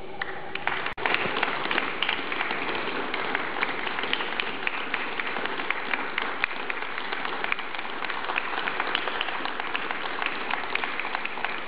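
Crowd clapping and applauding, a dense even patter of many hands, after a brief cut in the sound about a second in.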